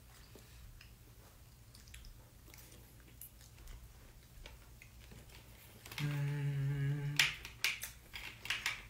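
A person hums one low note for about a second, about six seconds in, followed by several sharp clicks. Before that there are only faint scattered clicks, like chopsticks touching plastic trays during a meal.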